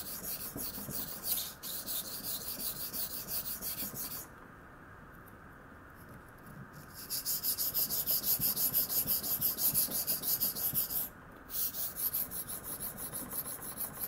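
A 52100 steel knife blade scraping back and forth on a 1000-grit waterstone used with only a little water, in quick, even strokes, grinding a small bevel onto the edge. The stroking stops for about two and a half seconds about four seconds in, and again briefly near eleven seconds.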